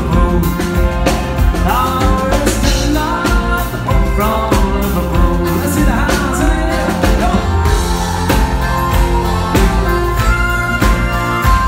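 Live band music: a man singing while playing a piano accordion, over a band with a steady drum beat.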